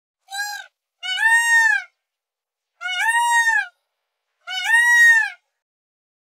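Peacock calling four times: a short first call, then three longer, loud, nasal wailing calls about a second and a half apart, each rising and then falling slightly in pitch.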